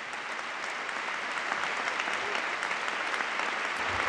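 Audience applauding, many hands clapping together, growing steadily louder.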